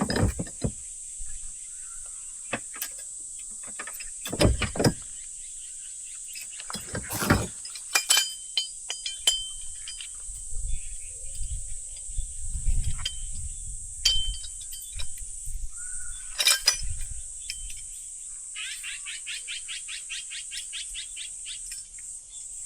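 Steady high-pitched chorus of insects, with scattered clinks, knocks and thuds of gear being handled close by, and a fast run of even clicks near the end.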